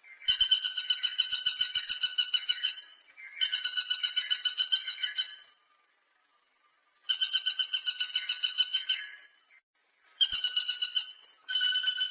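Woodpecker calling in rapid rattling series of evenly repeated notes at a steady pitch, about eight or nine notes a second. There are four series of one to two and a half seconds each with short gaps between them, and a fifth series begins near the end.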